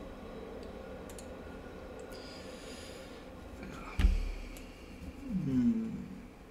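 A few faint mouse clicks, then about four seconds in a sudden dull thump, the loudest sound, followed by a man's short groan falling in pitch.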